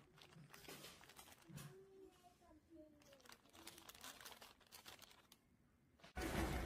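Soft crinkling and rustling of a glossy plastic packaging bag as hands fold and press its flap shut over a photocard. About six seconds in, a louder steady hiss with rustling cuts in suddenly.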